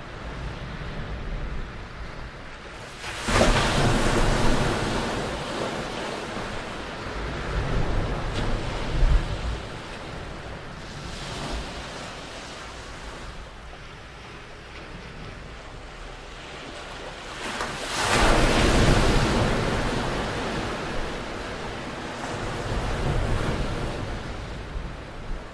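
Small waves breaking on the shore and washing back. Two larger waves break about three seconds in and again about eighteen seconds in, each rising suddenly and then fading over several seconds.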